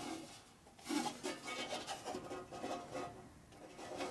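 A few soft rubbing and scraping sounds as a 1960s Boice-Crane 14-inch bandsaw's wheel is turned by hand to check the blade's tracking, growing quieter near the end.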